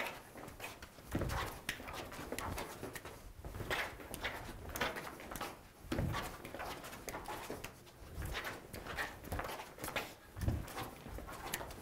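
Irregular scuffing footsteps and shoe scrapes on a hard studio floor, with a few heavier footfalls and soft arm contacts and clothing rustle, as two men step through a knife drill.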